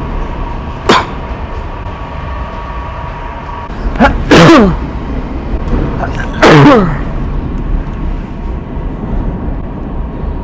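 Two loud, weird-sounding fake coughs, each a short burst falling in pitch, about four and six and a half seconds in, over the steady rumble of a metro train carriage. A single sharp click comes about a second in.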